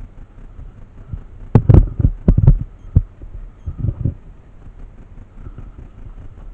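A quick run of sharp cracks and clicks, about five within a second, then a single crack and two duller thumps a little later, over a low steady rumble.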